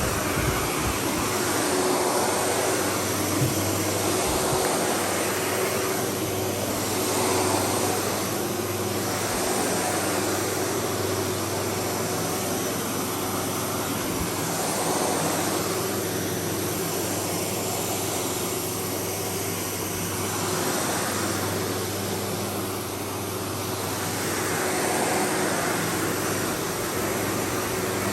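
Windsor SR15 upright vacuum cleaner running on berber carpet, a steady motor hum and airflow that swell and ease every few seconds as it is pushed back and forth.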